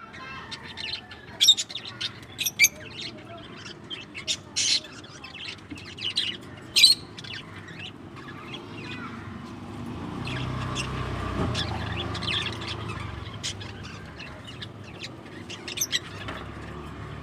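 Small pet parrots chirping and squawking in many short, sharp, high calls. The calls are loudest and thickest in the first seven seconds, thin out through the middle, and pick up again briefly near the end.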